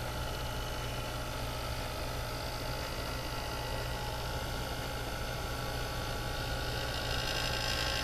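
Small handheld electric heat tool running steadily: a motor hum under the hiss of its fan blowing air, drying ink on a paper card. It gets slightly louder near the end.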